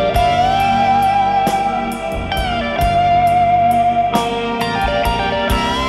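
Background music: a lead melody of long held notes that slide between pitches, over a steady beat.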